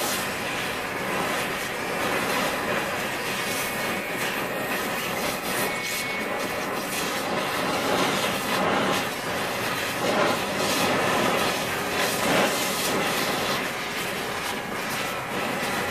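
MagneGas2 fuel-gas cutting torch flame burning steadily on a piece of tungsten: a continuous hiss with crackling, swelling and easing a little in loudness.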